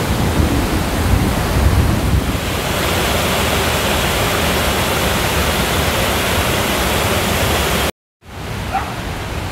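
Creek whitewater rushing over rocks and a small waterfall, a loud steady rush of water. It cuts off abruptly near the end and comes back quieter.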